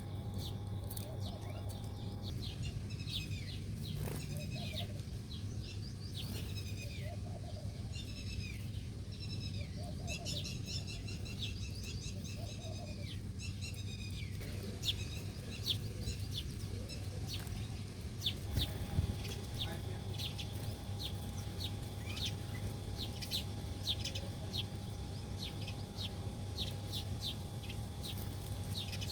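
Small birds chirping: a busy stream of short, repeated high notes, coming faster and shorter from about halfway through, over a steady low hum.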